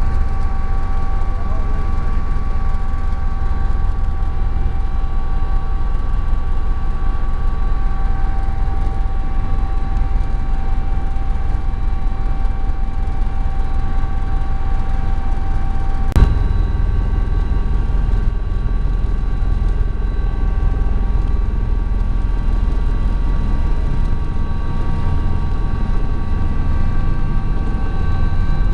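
Sikorsky helicopter in flight: a steady deep drone with several steady whining tones above it. There is a single sharp click about sixteen seconds in, after which the whine changes slightly.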